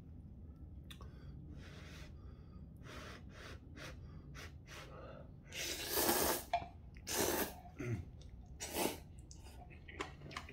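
A person slurping kalguksu noodles and broth from a small pot, with three loud slurps about six, seven and nine seconds in and softer sips and breaths before them.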